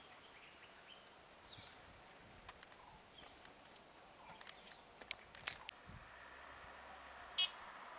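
Quiet forest ambience with birds chirping here and there over a steady thin high tone. A few sharp clicks come about five seconds in, after which a faint steady hum joins, with one short sharp call near the end.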